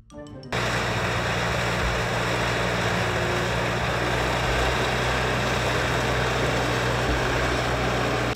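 Farm tractor engine running steadily: a low, even hum under a loud wash of mechanical noise. It starts abruptly about half a second in and cuts off suddenly at the end.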